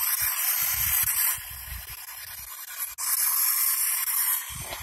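P-SB7 spirit box sweeping the radio band, giving a rush of white-noise static. The static switches abruptly between louder and quieter stretches: loud for about the first second and a half, quieter, then loud again from about three seconds in.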